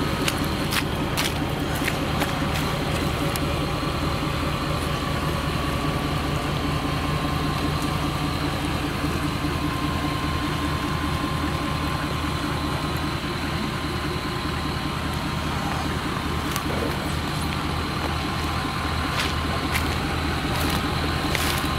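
Pickup truck engine idling steadily, with a few light clicks and knocks near the start and near the end.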